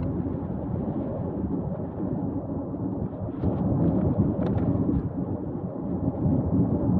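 Strong wind buffeting the microphone: a low, uneven rush of noise that swells and drops with the gusts, a little stronger in the second half.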